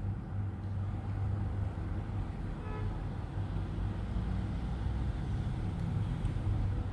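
Steady low background hum with no distinct events, and a faint brief tone about three seconds in.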